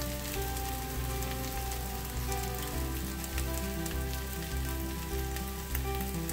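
Chorizo and potato hash sizzling in a frying pan, a steady crackle of many small pops. Background music with steady low notes plays underneath.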